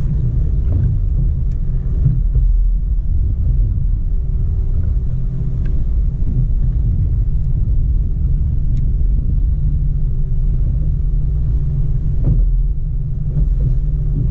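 Boat's outboard motor running at a steady low speed, a deep even rumble with a faint steady hum above it.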